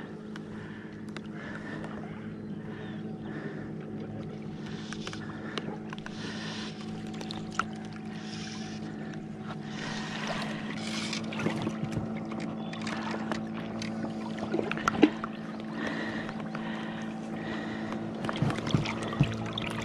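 Steady low hum of a boat engine, with small knocks, clicks and rustles of fly line and rod being handled in an inflatable boat while a fish is brought in by hand. The sharpest knocks come near the end.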